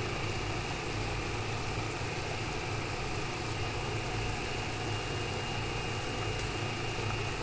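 Steady machine hum with a thin high whine running alongside it, unchanging throughout.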